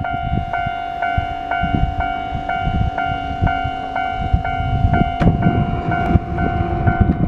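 Japanese railway level crossing's electronic warning bell ringing, about two strikes a second over a steady tone, with a low rumble underneath that grows heavier about five seconds in.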